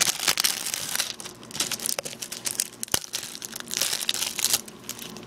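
Plastic wrapping crinkling as a DVD case is handled, with a few sharp clicks about two and three seconds in.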